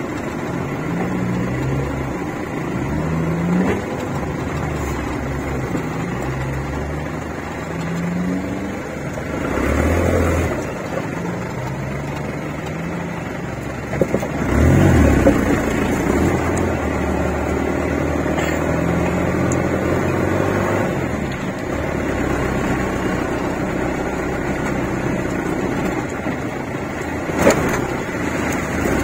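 Off-road 4x4's engine running under load, heard from inside the cab, repeatedly revving up and easing off as it drives a rough dirt track. A few thumps come from the vehicle jolting over bumps, with a louder stretch about halfway through and a sharp knock near the end.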